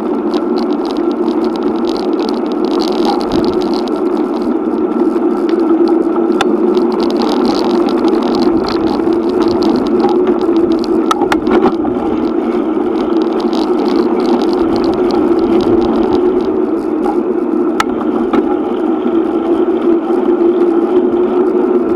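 Bicycle riding noise picked up by a handlebar-mounted action camera: steady tyre-on-pavement and vibration noise, with a few sharp clicks and rattles from bumps in the road.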